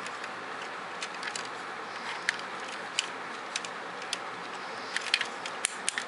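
Hard plastic parts of a Robots in Disguise Optimus Prime fire-truck toy clicking and tapping under the fingers as its ladder and missile launcher are handled. The clicks are irregular, a few a second, and come faster near the end, over a steady background hiss.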